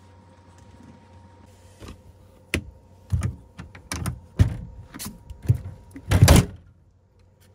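A frozen-shut camper door being forced: a series of sharp knocks and rattling thuds about twice a second, ending in one louder, longer burst as the door gives.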